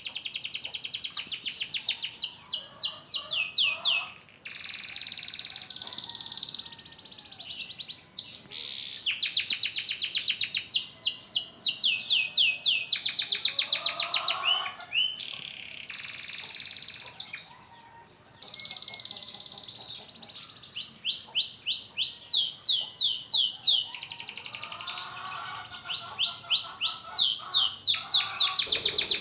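Domestic canary singing, practising its song after its molt: long trills of rapid repeated high notes, broken by a few short pauses, with some lower warbling phrases mixed in.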